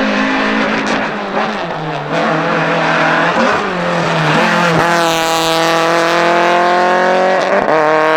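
Race car engine running hard, its pitch climbing steadily through the revs with quick gear changes just under five seconds in and again near the end.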